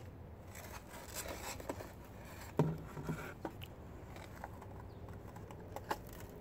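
Rustling, scraping and light clicks of a paper engine air filter element being pulled out of its plastic airbox, with one louder knock about two and a half seconds in.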